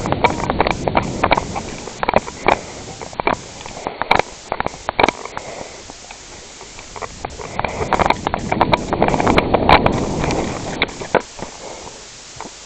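Irregular sharp clicks and knocks over a low rumbling noise. They come thickly at the start and again in the second half, with a quieter stretch around the middle.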